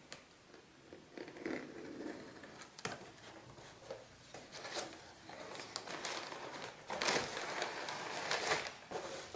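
A cardboard box being opened by hand: scattered scrapes, taps and rustles of the cardboard flaps and the packing inside, loudest in two rustles near the end.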